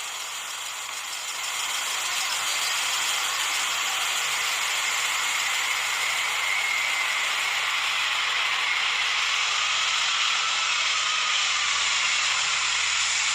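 Jet airliner engines on a landing approach: a steady rushing noise that builds over the first couple of seconds, with faint whining tones that slowly shift in pitch as the aircraft passes.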